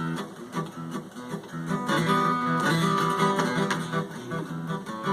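Strummed guitar chords played as the introduction to a song, before the singing comes in.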